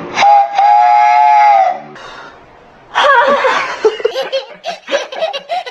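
One long train horn blast, a steady tone of about a second and a half that sags at its end. A second or so later a person laughs.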